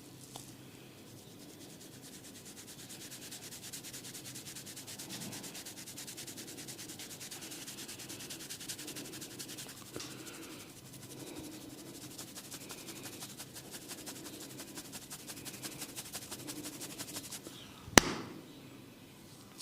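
Fingers scratching and rubbing briskly through hair on the scalp in a fast, even scrubbing rhythm. A single sharp crack sounds near the end, louder than everything else.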